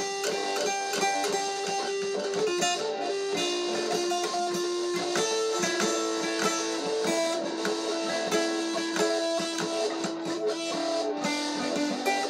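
Acoustic guitar played solo, a steady run of picked notes and chords without singing.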